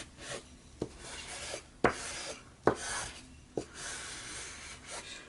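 Paper being rubbed down firmly to press double-sided tape so it sticks, in several rasping strokes, with four sharp taps about a second apart.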